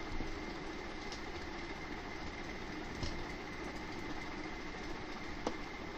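Steady background hum and hiss with a faint high whine, broken by three soft clicks of a computer mouse.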